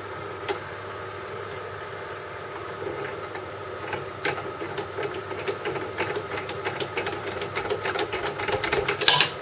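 Old drill press running, a steady motor hum with its chuck spinning on a worn spindle taper where it has just been pressed on for a test. A rattling clatter builds from about three seconds in as the feed lever is worked, with a brief loud burst near the end.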